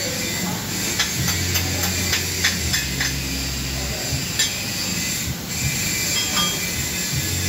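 Stick-welding arc on a 6011 electrode root pass, a steady crackling hiss with irregular sharp pops.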